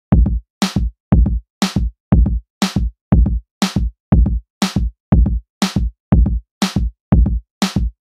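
Electronic drum-machine beat: a low kick-drum hit and a sharper snare-like hit alternate at an even pace, about two hits a second, with silence between them.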